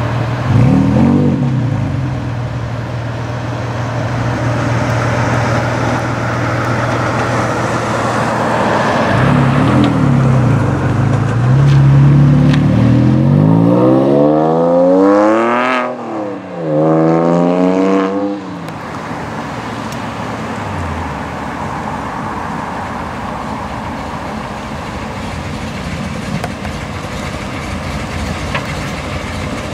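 Porsche 911 (997) flat-six engine pulling away and accelerating hard past. Its revs climb steeply about halfway through, dip at a gear change, climb again, then fall away as the car drives off.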